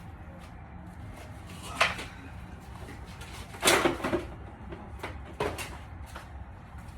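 A few short knocks and clatters of something being picked up and handled, the loudest cluster about halfway through, as the interior door panel of a car is fetched.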